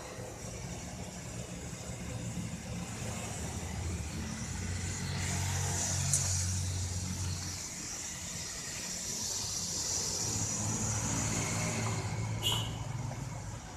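Toyota Kijang Super's four-cylinder petrol engine running, a steady low hum that swells twice. A sharp click comes about six seconds in and another near the end.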